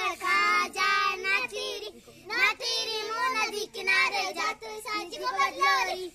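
Young children singing a traditional festival folk song together, with a brief break about two seconds in before the singing resumes.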